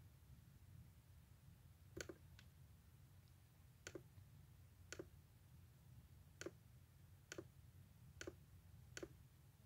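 Computer mouse clicks: about eight sharp single clicks at irregular intervals, over a faint steady low hum.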